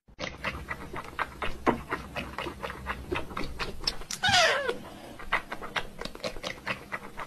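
A cat meows once, a call falling in pitch about four seconds in, against a run of quick, irregular clicks and taps.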